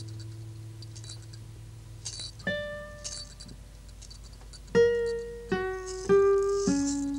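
Sparse instrumental music: a long held low note fades into a single higher note about two and a half seconds in, then from about five seconds in a run of separate notes steps mostly downward. Faint high hissy swishes sound over it.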